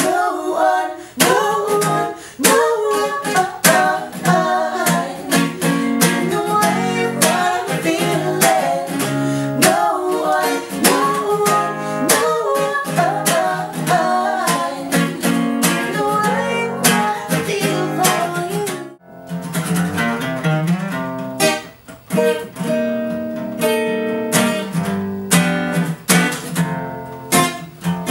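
Acoustic guitar strummed and picked, with a wavering wordless melody line over it. The music breaks off for a moment about two-thirds of the way through, then a new passage starts.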